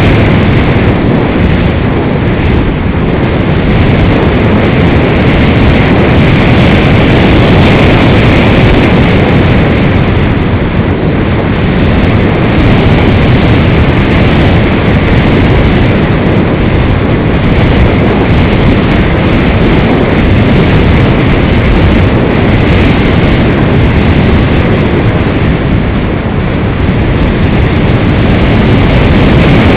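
Loud, steady rush of wind buffeting the microphone of a camera riding on an EasyGlider Pro RC glider in flight, swelling and easing slightly.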